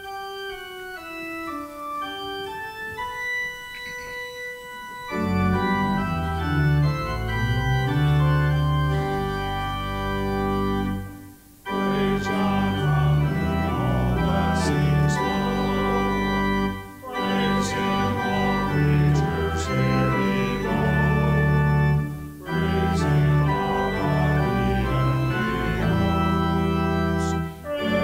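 Church organ playing a hymn tune: a single line of notes for the first five seconds, then full chords with a deep bass, in phrases broken by short pauses about every five to six seconds.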